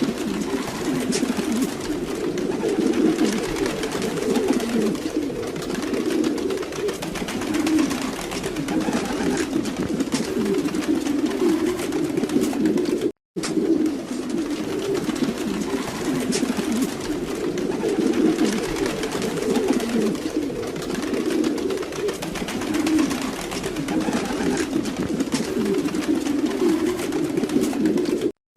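Domestic pigeons cooing continuously, many low coos overlapping. The sound cuts out briefly about thirteen seconds in.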